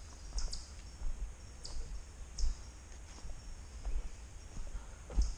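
Footsteps on a forest trail at a slow walking pace, with small crunches and clicks underfoot, over a steady high insect buzz.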